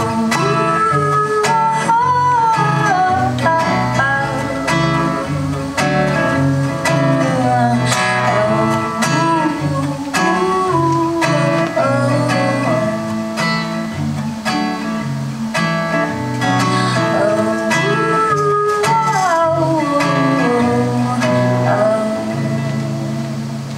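Live acoustic song: plucked guitar strings carry an instrumental passage, with melody lines bending up and down. Near the end it tapers off, finishing on a held chord.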